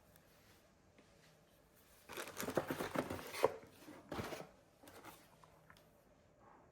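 Rustling and crinkling for about two seconds, beginning about two seconds in, followed by a few faint clicks.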